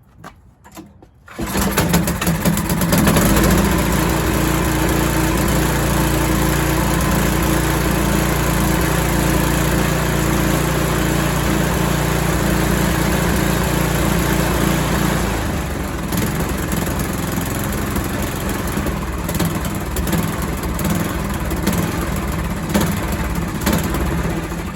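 Ariens 1027 snowblower engine, cold-started on choke at full throttle, catches about a second and a half in and runs steadily; a little over halfway its low note shifts.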